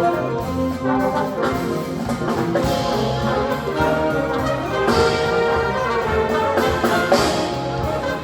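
Live instrumental ensemble music led by brass, with trumpets and trombones playing held chords and moving lines.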